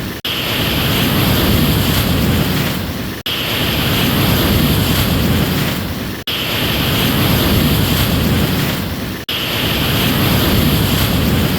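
Ocean surf, a steady rushing wash of waves. It is a short loop of about three seconds that repeats, with a brief sudden gap at each seam, about three seconds apart.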